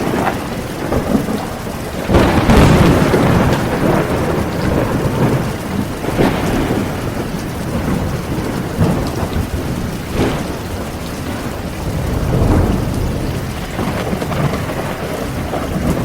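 Heavy rain falling steadily with rolling thunder, the rumble swelling strongest about two seconds in and again near the end.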